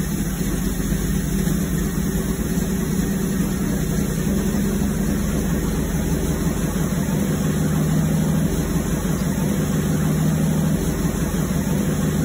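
Inline six-cylinder engine of a 1956 Ford F-250 project truck running steadily at idle, brought back to running condition.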